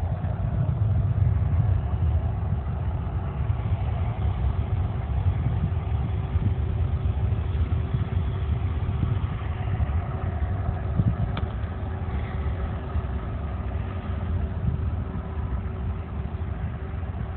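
Distant jet engines of a Boeing 767 idling on the runway: a low, uneven rumble with a faint steady whine.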